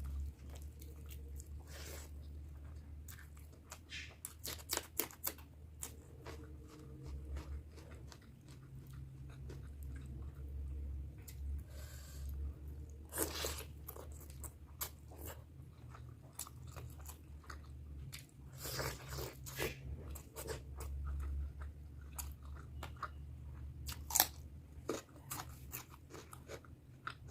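Close-miked eating: a person chewing and biting mouthfuls of chicken curry with rice and boiled eggs, with many short sharp mouth clicks, over a steady low hum.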